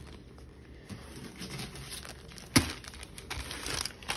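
Rustling and crinkling of plastic craft packaging and a cardboard box as items are handled and dug out, with one sharp knock about two and a half seconds in.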